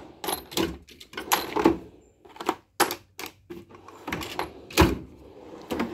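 Metal toolbox drawers being shut and opened, with hand tools clattering and clicking inside them: a string of irregular sharp clacks and a heavier thump about five seconds in.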